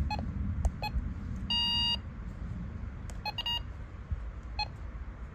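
Weather radio beeping as its menu buttons are pressed: several short key beeps, each with a click, and one longer beep of about half a second, about a second and a half in.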